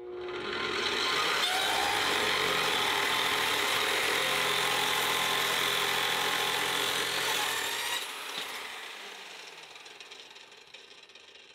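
Cold-cut saw with a carbide-tipped blade cutting through steel angle iron, a steady loud grinding cut that lasts about eight seconds. It then stops and the blade fades as it spins down.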